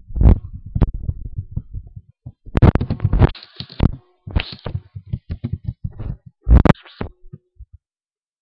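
Computer keyboard typing heard as a quick run of muffled low thumps close to the microphone, with a few louder noisy bursts in between.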